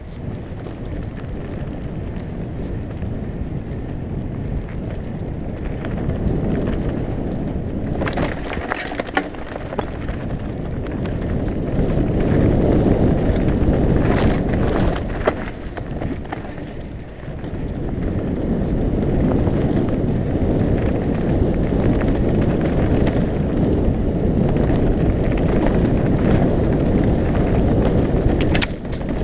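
Mountain bike rolling down a dirt and rock singletrack, with steady wind rumble on the microphone and tyre noise. At times the bike clatters and knocks over rocks, most sharply about eight seconds in, again around a quarter-minute in on a stony stretch, and once near the end.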